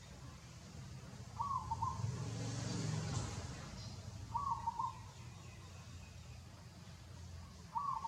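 A bird calling: a short call repeated three times, about every three seconds, over a steady low background rumble.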